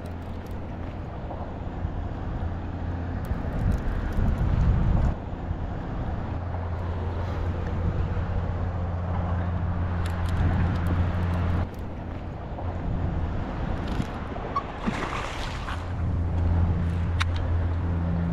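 Boat motor running with a steady low hum. The hum drops away about two-thirds of the way through and comes back near the end, with a brief watery hiss just before it returns.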